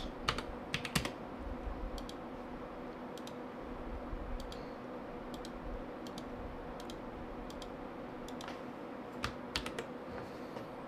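Scattered clicks from a computer keyboard and mouse, a dozen or so spread irregularly, as the stress-test programs are started. A faint steady hum runs underneath.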